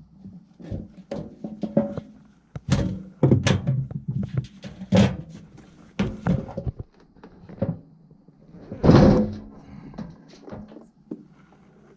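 Irregular knocks and clunks from handling a blower assembly and tools while it is taken apart, with a loud thump about nine seconds in.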